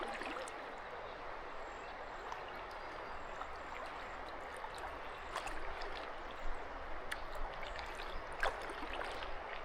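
River water rushing and gurgling steadily around a kayak, with a few short, sharp paddle splashes in the second half.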